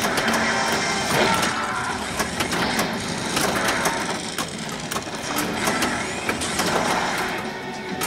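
A 24 pinball machine in play: the steel ball rolling and clattering over the playfield, with many sharp clicks and knocks from its switches and solenoids, over a steady mechanical din.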